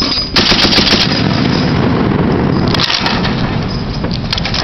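A .50-caliber heavy machine gun firing long bursts, the shots running together into a dense, continuous rattle. It breaks off briefly near the 3-second mark, then fires again.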